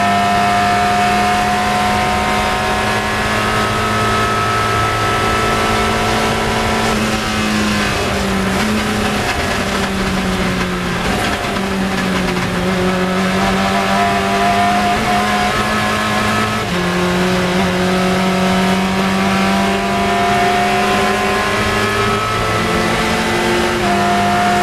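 Onboard sound of a Lola sports racing car's engine held at steady high revs at full speed, then falling as the car brakes and downshifts about seven seconds in for a corner. It then pulls back up through the gears, with upshifts about two-thirds of the way through and again near the end.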